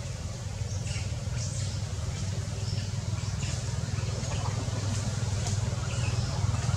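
Steady low outdoor rumble that grows slightly louder toward the end, with scattered faint, short high-pitched chirps or ticks.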